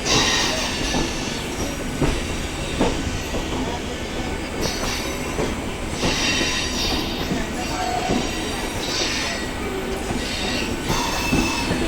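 Passenger train running on the rails with a steady rumble, high wheel squeals coming and going several times, and scattered knocks of the wheels over rail joints.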